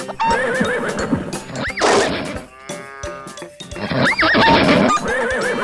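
Horse whinny sound effect, heard twice, over children's music.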